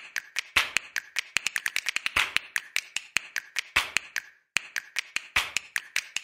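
Rapid, uneven run of sharp clicks and snaps, several a second. It cuts out for a moment a little after four seconds, then carries on.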